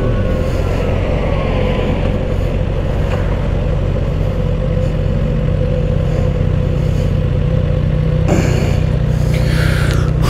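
Kawasaki Ninja ZX-6R's inline-four engine running at a steady speed under way, with wind rushing over the microphone.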